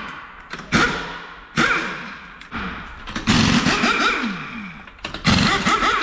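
Pneumatic impact wrench working the wheel nuts of a car in about five short bursts, one longer near the middle. Each burst starts abruptly and winds down in pitch.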